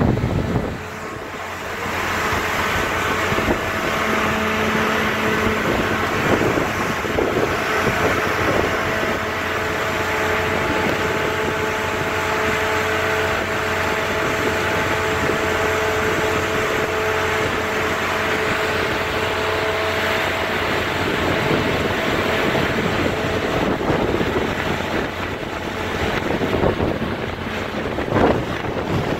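Wind blowing steadily across the microphone, with a faint two-tone hum from about two seconds in until a few seconds before the end.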